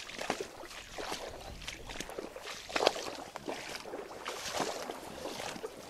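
Someone wading through shallow creek water in waders, the water sloshing and swishing with each step, about once a second.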